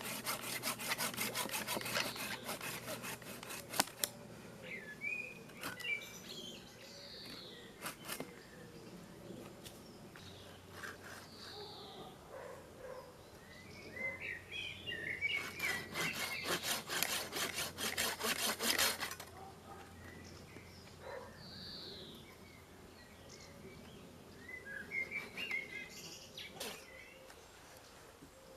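Spears and Jackson hand pruning saw cutting through tree wood in quick back-and-forth strokes, in two bouts: one for the first four seconds and another of about three seconds starting near sixteen seconds in. Birds chirp in short calls in the pauses between.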